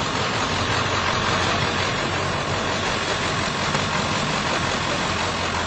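A vehicle engine idling steadily under a constant hiss, with no distinct events.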